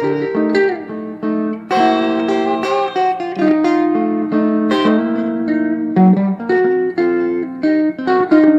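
Two overdubbed Fender Telecaster rhythm parts playing together through an amplifier built for the Telecaster: one part uses both pickups, the other the bridge pickup, heard on the right. The guitars play a busy run of picked notes and chords, several attacks a second, with ringing overtones.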